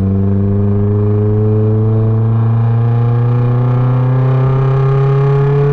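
Nissan S13 240SX engine and its straight-piped ISR catback and test-pipe exhaust, heard from inside the cabin, pulling under steady throttle with the note climbing slowly in pitch.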